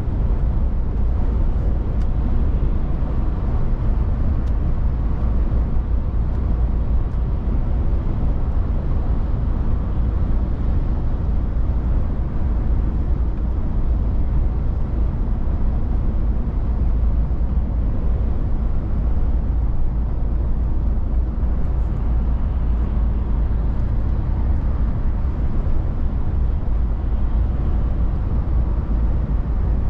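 DAF XF 480 truck's PACCAR MX-13 straight-six diesel running while driving, together with tyre and road noise: a steady low rumble that does not change.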